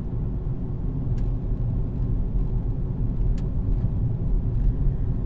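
Car driving, a steady low rumble of engine and road noise, with a couple of faint brief clicks about a second in and again a little past three seconds.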